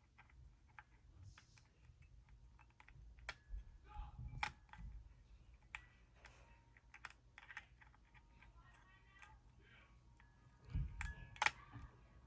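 Faint, irregular metallic clicks and small scrapes of a lock pick and tension wrench working the pins of a Paclock 95G five-pin padlock, with a few sharper clicks in the middle and near the end.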